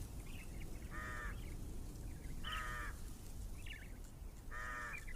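A bird calls three times, each call about half a second long and a second or two apart, with fainter, higher chirps between the calls.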